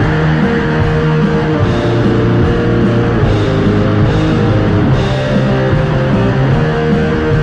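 Loud rock music led by electric guitar, a dense, unbroken band sound.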